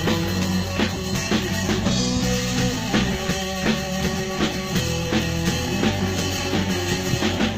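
Rock music with a steady drum beat, guitar and strong bass, played over a boat's sound system under test.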